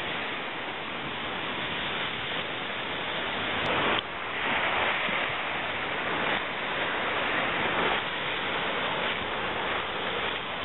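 Ocean surf breaking and washing up a sandy beach: a steady rushing noise, with a brief click about four seconds in.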